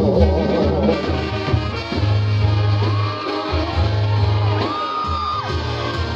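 Mexican banda music in an instrumental passage between sung lines: brass play a gliding melody over a low tuba bass line.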